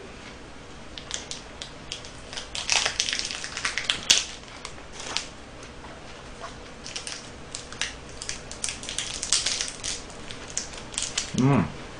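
Small plastic snack wrappers of individually packed mini KitKat bars crinkling and tearing open by hand, in irregular bursts of crackling. There is a short hummed voice near the end.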